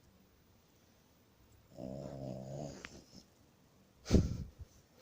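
French bulldog snoring in its sleep: one pitched snore about two seconds in, then a sudden, loud, short burst of breath near the end, the loudest sound.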